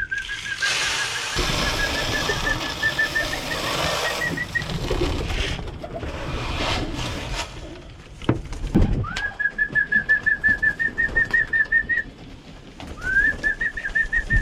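Pigeons in a loft, with three long high whistled notes, each sliding up and then held with a quick flutter, at the start, about nine seconds in and again near the end. A rushing noise fills the first few seconds.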